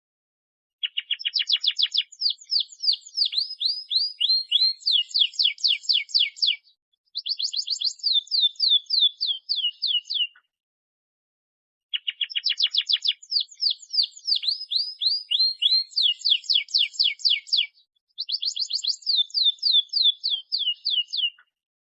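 Domestic canary in full song: long phrases of fast, rolling trills made of quick downward-sweeping notes. Two near-identical songs of about ten seconds each, with a short pause between.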